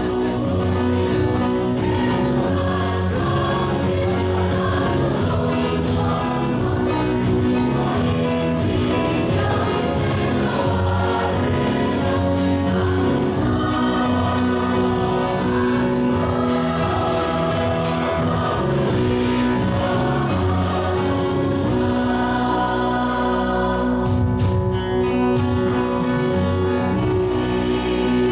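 Mixed church choir of men and women singing an Easter anthem in parts, in Mizo.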